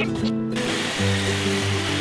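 Background music with steady notes throughout; from about half a second in, a jigsaw runs, cutting through pressure-treated pine board under the music.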